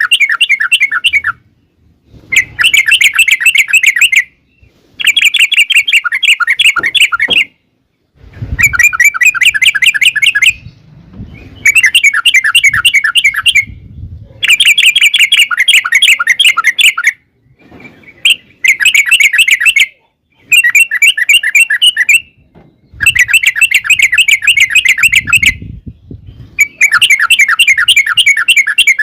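Yellow-vented bulbul (trucukan) singing its long rolling 'ropel' song: bout after bout of rapid, bubbling repeated notes, each bout lasting two to three seconds with short pauses between.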